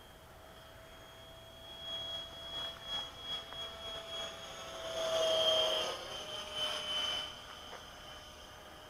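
64 mm electric ducted fan of an RC SA-43 Hammerhead jet flying past, its whine swelling from about two seconds in, loudest around five to six seconds, dipping slightly in pitch as it goes by and fading by about seven seconds.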